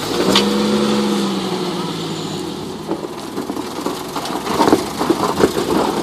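Jeep Wrangler YJ engine running under load as it crawls up a rock ledge. A steady drone for the first couple of seconds sags slightly in pitch and fades, then scattered short knocks and crunches follow.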